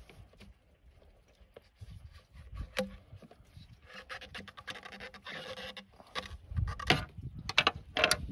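A screwdriver scraping and prying at a coolant hose connection on the old thermoplastic Y-pipe, working it free. There is a stretch of scraping and rubbing about four seconds in, and several sharp clicks and knocks near the end.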